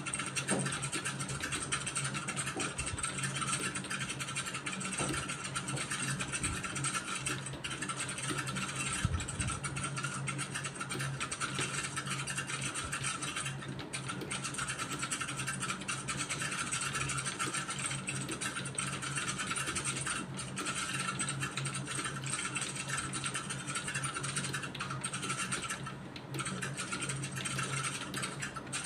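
Computer keyboard keys being typed continuously at a steady speed, over a steady low hum.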